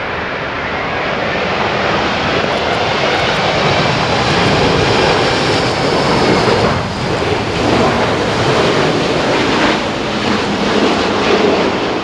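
Twin-engine wide-body jet airliners passing low on final approach: a loud, even rushing noise of their engines that swells over the first four seconds, dips briefly about seven seconds in, then carries on.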